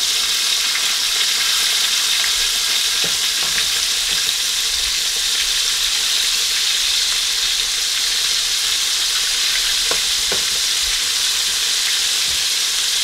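Floured buttermilk chicken deep-frying in a Dutch pot of hot oil: a steady sizzle, with a few faint clicks about three seconds in and twice around ten seconds in.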